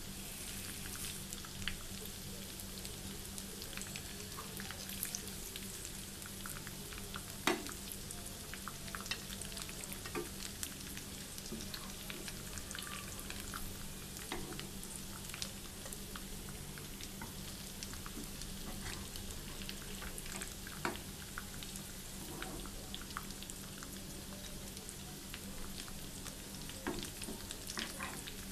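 Beef kababs shallow-frying in oil in a pan, a steady sizzle, with scattered clicks and knocks of a metal spoon against the pan as the fried kababs are lifted out.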